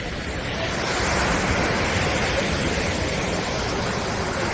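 Sea waves washing up onto a sandy beach: a steady rush of surf that swells a little about a second in.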